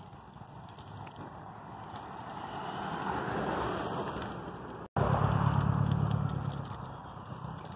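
A car driving past on the road: its tyre and engine noise grows as it approaches, is loudest just after it passes, then fades away. The sound cuts out completely for an instant about five seconds in.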